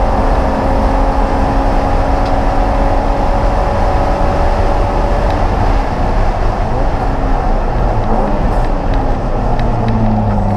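Race car engine running hard at speed, heard from inside the stripped, roll-caged cabin over steady road and wind noise. Its pitch falls slowly, then settles to a lower, steady note about nine seconds in.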